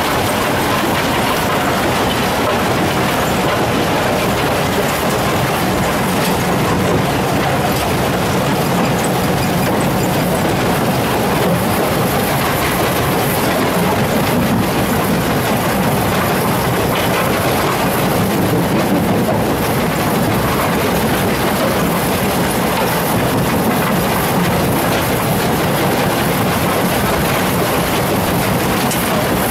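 Crushers and conveyors of an ore-processing plant running together: a loud, steady mechanical rattle and rumble that holds even throughout.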